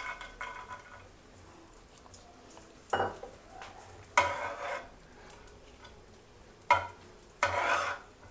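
A spoon stirring and scraping in a pan of cashew nuts frying in ghee. From about three seconds in there are four louder scrapes against the pan.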